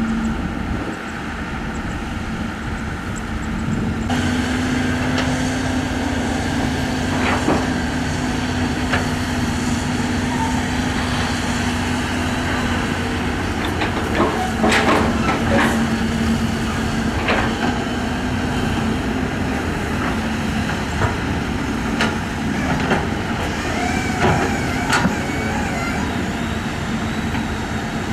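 Diesel engines of the Cat 320 and the long-reach Hyundai excavator working hard in deep mud, a steady drone with a held hum, broken by a scattered series of knocks and clanks from the digging.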